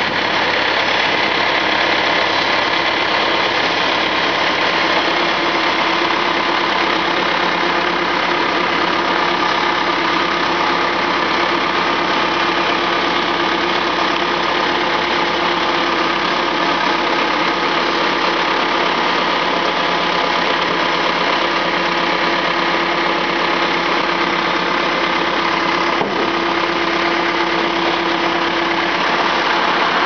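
Diesel engine of a Terex backhoe loader running steadily, a continuous even sound with a faint steady tone over it.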